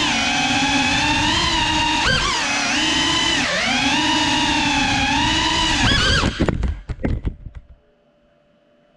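Brushless motors and ducted 3.5-inch propellers of a GEPRC Cinelog 35 cinewhoop whining, the pitch rising and falling with throttle. About six seconds in the whine stutters through a few knocks and cuts out as the drone crashes, leaving only a faint hum.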